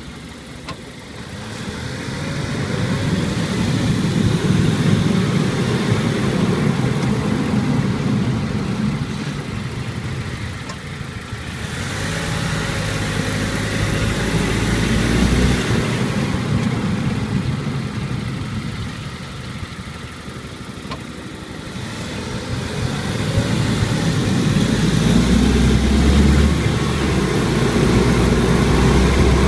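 Car being driven, its engine and road noise swelling and easing several times as it speeds up and slows down.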